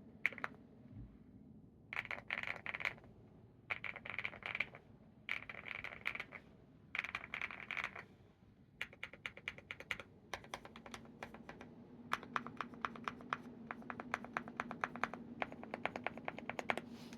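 Epomaker x Feker Galaxy80 mechanical keyboard with hand-lubed Wuque Studios Aurora switches and KAT Mizu Moonlight keycaps being typed on, a thocky keystroke sound. It comes first in four short bursts of rapid typing, then as steady, fast typing from about nine seconds in.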